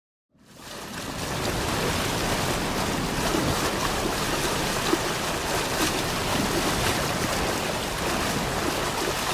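Steady rush of wind and sea water on a boat out at sea, fading in from silence at the start.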